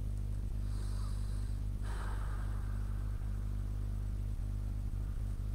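A steady low hum, with a soft breath about two seconds in.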